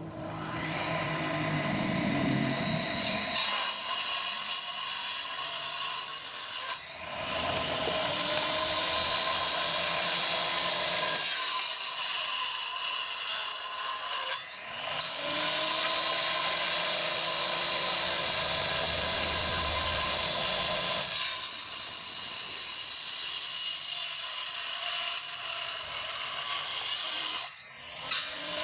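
Homemade saw driven by a blender motor through a belt and pulleys, its 7-inch blade whining steadily and cutting wood. The sound dips briefly three times.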